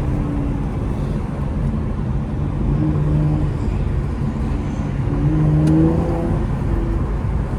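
Car engine running while driving, a steady rumble whose pitch shifts with the throttle and climbs briefly about five seconds in.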